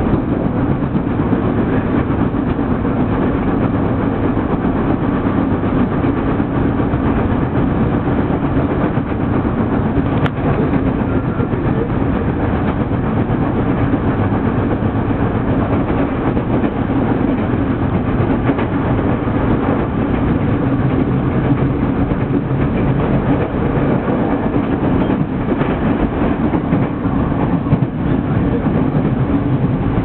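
Steady running noise of a moving passenger train heard from inside the car: wheels on rail and the car's rumble under way, with a constant low drone.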